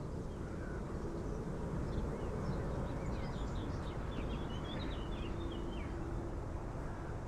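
Outdoor ambience: a steady low rumble with a faint hum, and a bird calling in a few quick chirps midway through.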